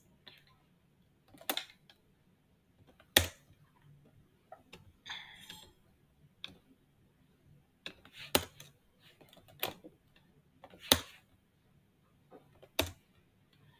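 Computer mouse clicks: about eight sharp, separate clicks spaced one to two seconds apart, as menu items are selected.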